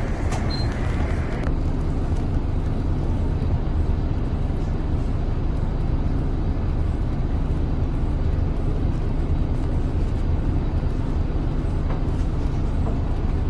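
Interior noise of a Seoul city bus on the move: a steady low rumble of engine and road noise. A short, high beep sounds once about half a second in.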